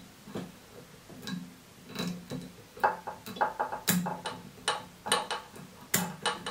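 Small fly-tying scissors snipping feather fibres while trimming a hackle scarf: irregular metallic clicks, with a quick run of snips about three seconds in.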